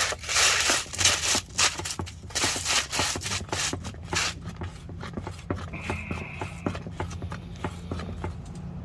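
Hand-handling noise: a run of short rubbing and scraping strokes for the first few seconds, then lighter clicks, over a low steady hum.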